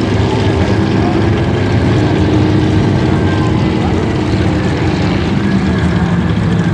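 Speedboat engines running hard at speed, a steady drone whose pitch shifts about five seconds in.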